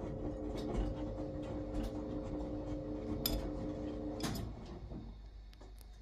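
Wyss Mirella Universal 2000 front-loading washing machine tumbling a load: the drum motor hums steadily while laundry knocks and clicks in the drum, then the motor cuts out with a clunk about four seconds in and the drum goes quiet.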